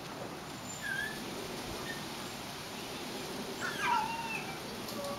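Basenji giving short, high whines while playing with another dog, the loudest a falling whine about four seconds in.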